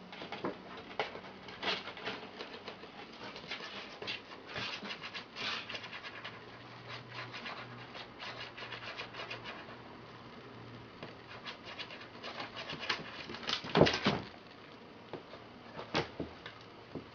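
Rustling crackle of a cat teaser toy made to rustle, in many short bursts as a two-month-old kitten bats and grabs at it, with paws and claws scuffling on the wooden floor. A louder bump late on.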